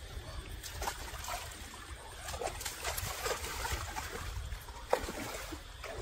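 Shallow, stony stream water splashing and trickling as a person wades barefoot and moves about in it, with small clicks of stones and one sharp knock about five seconds in.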